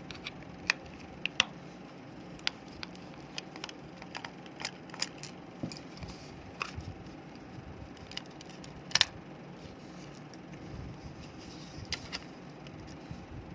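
Scattered small clicks and taps of plastic parts being handled as a computer mouse is taken apart, with a sharp double click about nine seconds in.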